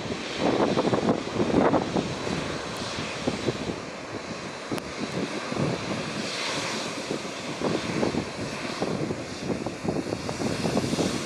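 Jet engines of a Boeing 787-10 Dreamliner airliner, a continuous rushing rumble, loudest in the first couple of seconds and then steadier.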